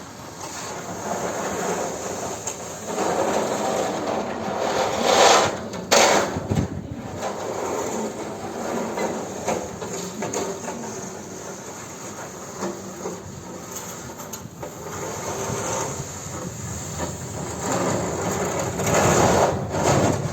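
EG2Tv electric train running on the rails: steady wheel-and-track noise with clatter, swelling loudest twice, about five seconds in and again near the end.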